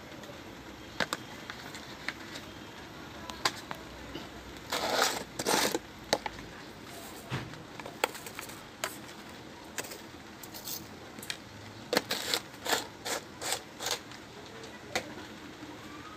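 Scattered clicks and knocks of kitchen utensils being handled, over a faint steady background. Two short rustling, scraping noises come about five seconds in, and a quick run of clicks follows later.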